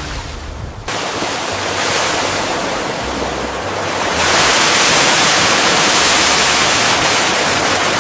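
Loud, even rush of sea water and surf. It cuts in about a second in and grows louder about four seconds in.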